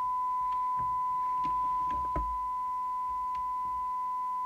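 Steady single-pitched test tone from a signal generator, received and demodulated by a Midland 76-900 CB base station and heard through its speaker while its S-meter is trimmed to read S9. A few light clicks in the first half come from the tool working the trimmer.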